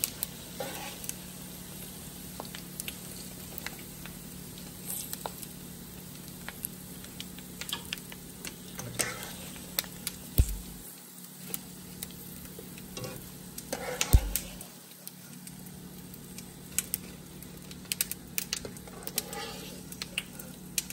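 Pork skins sizzling and crackling steadily in hot frying oil as a wire skimmer scoops them out, done once they have puffed and turned light. Two louder knocks come about ten and fourteen seconds in.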